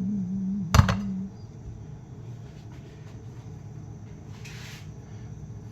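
A sharp single clink of glass or crockery in a kitchen, about a second in, over the tail of a hummed note that breaks off just after it. Then a low steady kitchen background with a brief hiss near the end.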